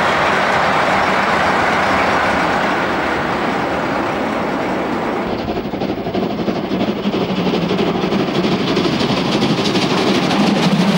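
A DB class 280 (V 80) diesel locomotive passing close by with a dense, steady running noise. About five seconds in, this gives way to a steam locomotive running on the track with a fast, even, rhythmic pulsing.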